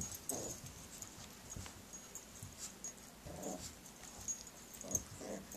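Dogs whimpering softly in three short bursts, with faint light clicks scattered between them.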